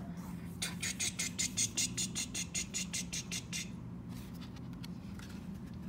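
A mouth-made helicopter sound: a rapid, even run of soft clicks, about eight a second, lasting about three seconds, imitating the beat of a rotor.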